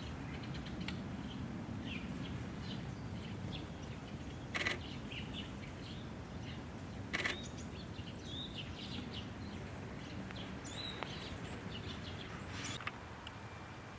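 Scattered short, faint chirps and call notes of small birds over a steady low background rumble, with two brief louder rustling knocks about four and a half and seven seconds in.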